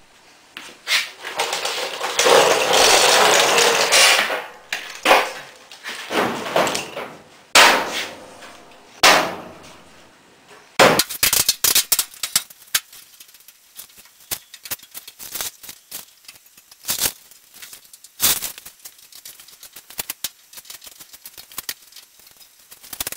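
Metal body parts and tools being handled on a truck cab: a stretch of scraping and rustling, then several sharp knocks and clanks, then many lighter ticks and clicks.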